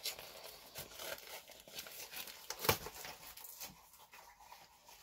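Trading card packaging crinkling and tearing as packs are opened: a run of faint, irregular crackles with one sharper one about two and a half seconds in.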